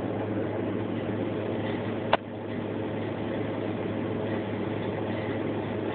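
Steady electrical-mechanical hum of a drink vending machine running, its refrigeration and fan going, with one sharp click about two seconds in, after which the sound gets a little quieter.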